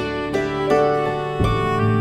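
Background music: a light instrumental tune of plucked notes over a steady bass, the notes changing every half second or so.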